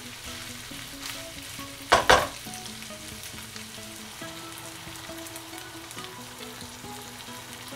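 Pork belly pieces sizzling as they fry in a frying pan, stirred with a spatula. Two loud knocks land about two seconds in, a fraction of a second apart.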